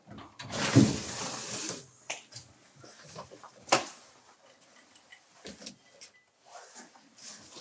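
Handling noises as a glass is set down and things are moved about on a shelf: a loud rustling burst about a second long near the start, a sharp click just under four seconds in, and scattered light taps and knocks.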